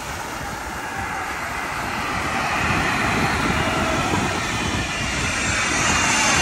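A Learjet's jet engines whining as it comes in to land, the sound growing steadily louder as the plane approaches.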